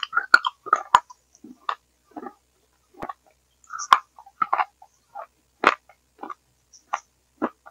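Close-miked wet chewing and mouth clicks from eating a soft, crumbly mush by the spoonful, in short irregular bursts with dead silence between. The headphone microphone is failing, gating and distorting the mouth sounds into a gurgling.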